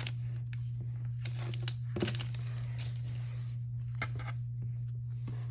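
Crinkling and rustling of a foil trading-card booster pack wrapper and cards being handled, in short scattered bursts over a steady low electrical hum.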